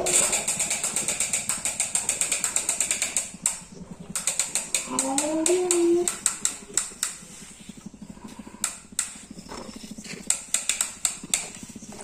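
A large plastic toy dump truck clicking as it rolls, a fast, even rattle of about eight clicks a second, turning slower and uneven after about three and a half seconds. A child's brief vocal sound comes about five seconds in.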